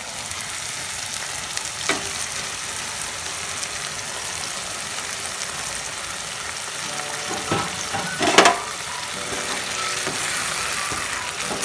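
Red chilli paste for Schezwan chutney sizzling steadily in a hot oiled pan as water is poured in. A spatula stirs through it with a few short knocks and scrapes against the pan, the loudest a little past the middle.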